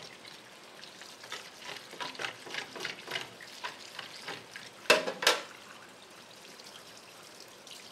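Tap water running into a stainless steel sink while hands rinse and scrub a gutted arakabu (marbled rockfish), a steady hiss with many small wet splashes and rubbing strokes. About five seconds in come two sharp knocks, a third of a second apart.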